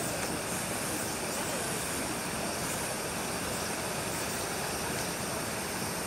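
Steady hiss of heavy rain falling, an even wash of noise with no distinct events.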